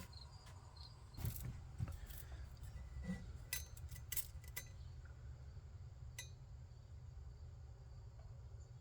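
Faint, scattered clinks and taps of small metal parts being handled on a workbench, a few sharp ticks spread over several seconds.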